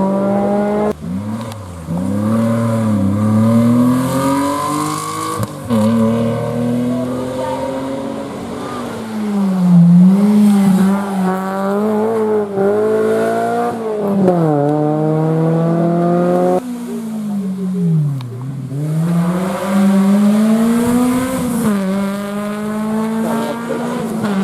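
Rally cars' engines revving hard, one car after another. The engine note climbs and drops again and again as they shift gears, brake and pass, with the sound breaking off abruptly a few times as one car gives way to the next.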